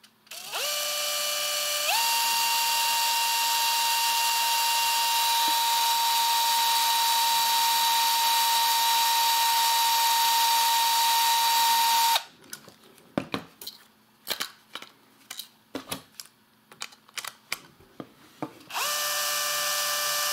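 Cordless drill-driver spinning, driving an M3 screw into a 3D-printed plastic part. Its whine rises in two steps over the first two seconds, holds steady for about ten seconds, then stops suddenly. After a few handling clicks it runs again briefly near the end at the lower speed.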